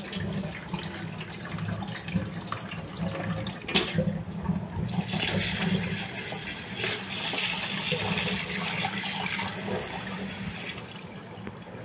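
Rice being washed in a metal bowl at a sink. Cloudy starchy water splashes as it is poured off, with a sharp knock about four seconds in. Then tap water runs into the bowl over the rice from about five seconds in, stopping near the end.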